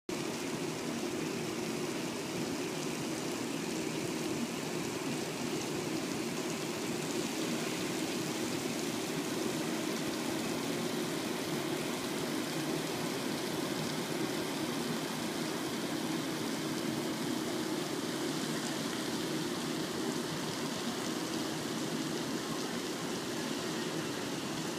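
Steady, even rushing noise with no distinct events, unchanged throughout.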